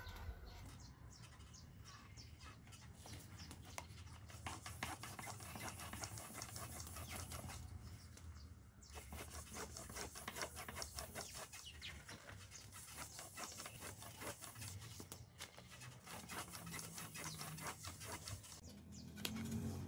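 A long thin rolling pin (oklava) rolling out yufka dough on a wooden board: a continual run of light, quick clicks and rubbing strokes.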